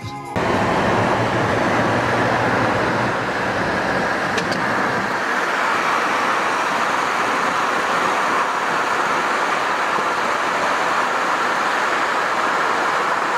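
Steady road noise of a car driving along a busy main road, heard from inside the car: an even rush of tyres and passing traffic, with a low rumble that drops away about five seconds in.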